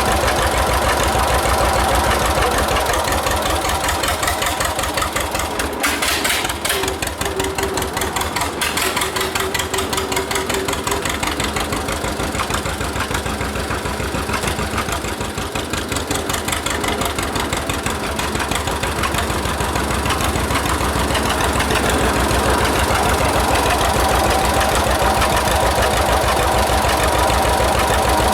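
1946 John Deere AR's two-cylinder engine running steadily, with an even stream of firing pulses and brief dips in level about six and fifteen seconds in.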